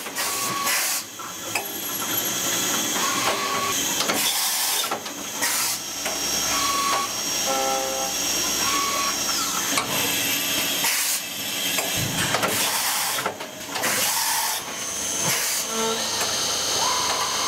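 A PORTACENTER three-spindle CNC machining center cutting brass fittings: a steady hiss of coolant spray under thin high whining tones from the spindles and tools, some gliding in pitch, with several short louder bursts of hiss.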